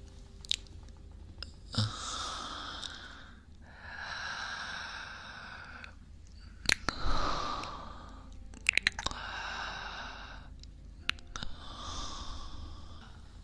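A man breathing slowly and softly close to the microphone, about five drawn-out breaths of some two seconds each with short pauses between, and a few sharp clicks in between.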